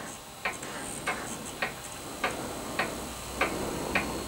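Steady mechanical ticking: seven short, evenly spaced ticks, a little under two a second.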